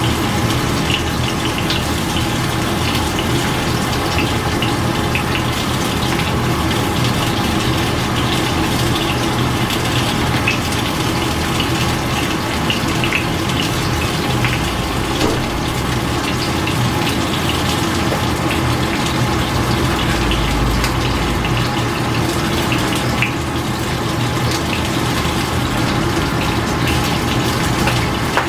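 Water boiling in a stainless steel pot on the stove: a steady rushing bubble with scattered small pops.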